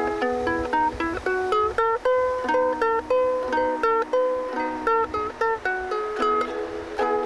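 Ukulele played solo: strummed chords, then a picked single-note melody, with strummed chords again near the end.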